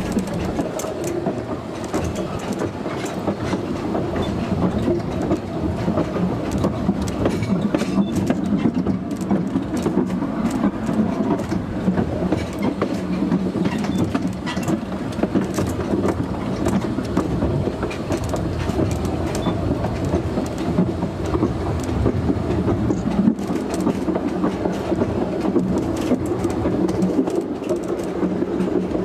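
Narrow-gauge (2 ft) passenger train running along the track: a steady rumble from the coach wheels on the rails, with many small clicks as they pass over rail joints and points.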